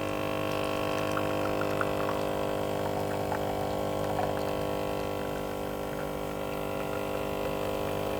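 Capsule coffee machine's pump running steadily as it brews, a constant hum with faint ticks and gurgles over it.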